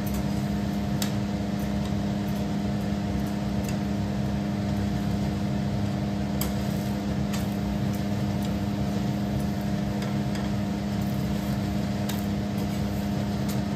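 Steady mechanical hum, like a kitchen exhaust fan or appliance motor, with a few faint clicks of metal tongs as a paratha is turned on the tawa.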